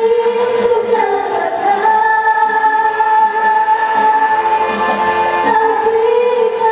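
Music with singing: a voice holding long notes over a band accompaniment.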